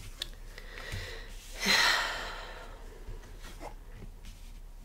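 A person's long breathy sigh about two seconds in, fading out over about a second, with a few faint taps of tarot cards being turned over on the table.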